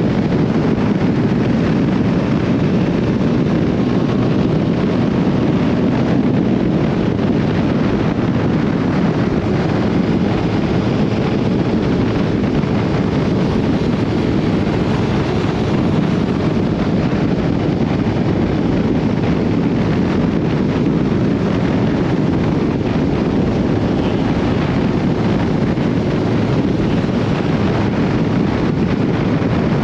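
Honda CB1300SB inline-four motorcycle cruising at a steady speed, its engine and road noise under a constant wind rush buffeting the microphone.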